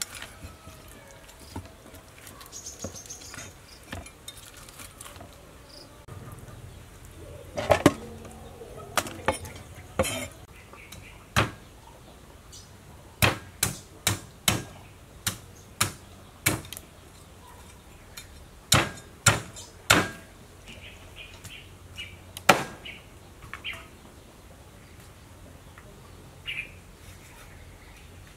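Cleaver chopping through a raw fish head on a chopping block: about twenty sharp chops at an irregular pace, several coming in quick runs of two or three.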